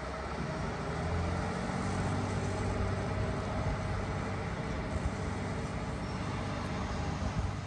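An engine running steadily at a constant low pitch, with a short knock near the end.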